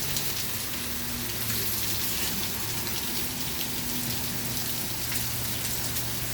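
A heavy rain and hailstorm coming down steadily: a dense hiss of rain dotted with many small sharp hits.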